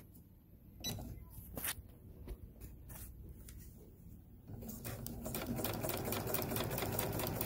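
Kenmore Ergo 3 sewing machine starting to sew about four and a half seconds in, then running steadily with fast, even needle ticks. It is stitching normally with its feed dogs working again after cleaning. A few faint clicks come before it starts.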